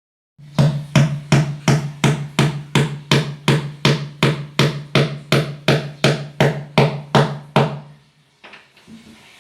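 Renovation hammering: about twenty even, sharp blows, roughly three a second, over a steady low hum that starts and stops with them. The blows stop about three-quarters of the way through, leaving a few faint knocks.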